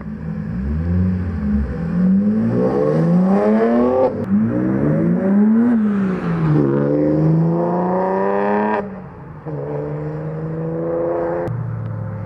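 BMW 325i E92's N52 2.5-litre inline-six, fitted with aftermarket headers, an opened-up intake and a custom stainless exhaust, accelerating hard. The engine note climbs through the revs and drops at gear changes about four and about nine seconds in, then holds at steadier revs.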